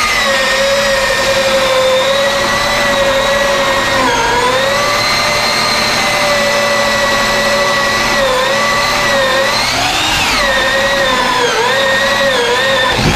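A motor-driven machine running with a steady whine, its pitch dipping briefly several times and swinging up and back down about ten seconds in.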